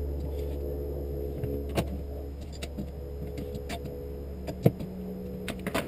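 A few light clicks and knocks from an Irwin clamp being handled, over a steady low hum.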